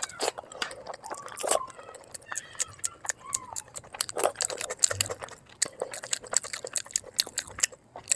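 Close-miked eating sounds played at double speed: rapid, dense clicks and crunches of chewing and biting, with a few short high mouth or voice sounds in the first half.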